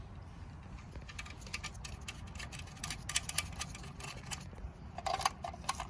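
Light clicks and taps of a screw and small parts being handled and fitted on an electric chainsaw's housing, coming in irregular clusters that grow busier toward the end.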